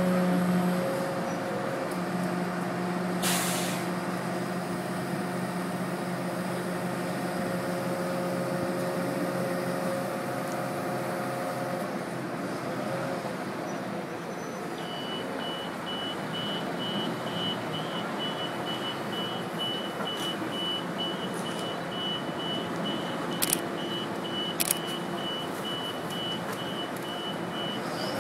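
A heavy truck's diesel engine runs steadily with a hum, which fades after about twelve seconds. About halfway through, a vehicle's reversing alarm starts beeping about twice a second and keeps on. A few sharp clacks come through, one early and two near the end.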